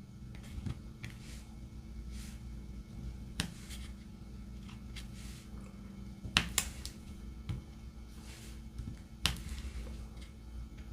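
Light, scattered clicks and taps of a diamond painting pen picking up resin drills and pressing them onto the canvas, a few louder than the rest, over a faint steady low hum.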